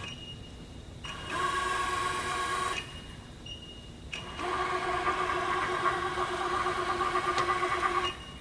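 Motor whine from a Webb/SWI 3VH ProtoTrak CNC vertical milling machine, running at a steady pitch in two runs that start and stop sharply: a short one about a second in and a longer one from about four seconds in.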